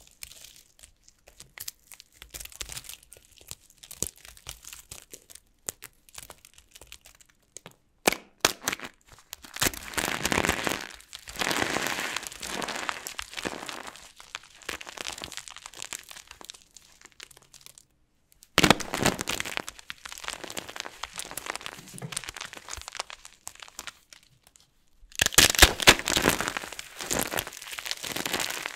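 Dried soap with starch crunching and crackling as it is broken, in several separate bursts, each starting sharply. The loudest burst comes near the end.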